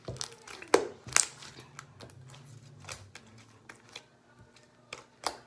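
Sticky slime being kneaded and pulled by hand, making irregular wet clicks and sharp pops. The two loudest come about a second in. The slime is still tacky while borax activator is being worked into it.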